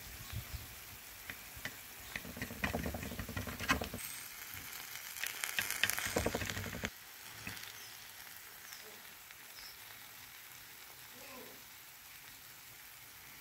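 A knife cutting through cooked eggplant in an earthenware tagine, with crackly scraping and sharp clicks of the blade against the clay. The cutting sounds stop suddenly about seven seconds in, leaving a faint steady hiss.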